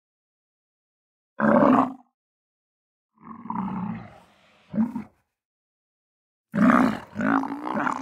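Camel grunting: four separate deep calls with dead silence between them, the last running on to the end.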